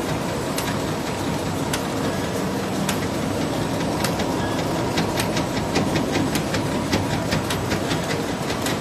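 Sharp-bottom paper bag making machine running: a steady mechanical clatter from its rollers and feed, with sharp clicks that come more often from about halfway.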